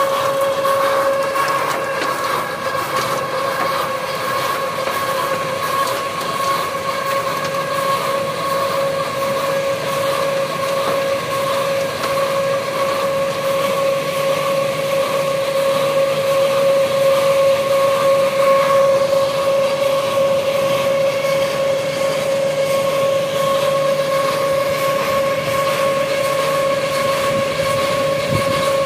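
Steady machinery drone with a constant high-pitched hum that holds one pitch throughout.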